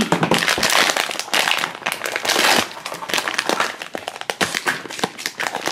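Crinkly packaging from a blind-boxed vinyl figure being torn open and handled, with a dense, irregular crackling that comes and goes.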